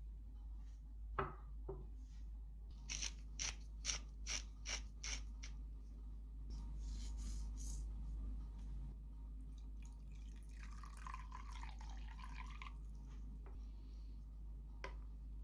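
A hand grinder twisted over a ceramic saucepan of tomato paste, giving a run of about seven quick clicks, then a brief sprinkle. About two seconds of water poured into the pot follow, over a steady low hum.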